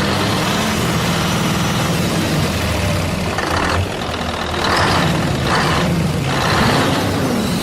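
Truck engine idling steadily, with several short bursts of hiss about halfway through.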